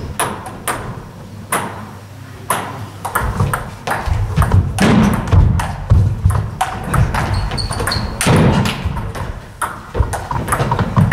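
Table tennis ball struck back and forth in a rally, a string of sharp clicks of ball on bats and table at uneven intervals in a sports hall. Low thuds come through the middle of the rally.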